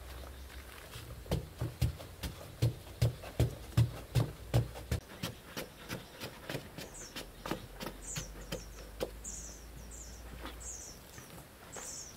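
Long-handled digging tool chopping into packed, sandy earth: a quick, even run of about ten heavy thudding blows, then lighter, sparser strikes. Birds chirp in the second half.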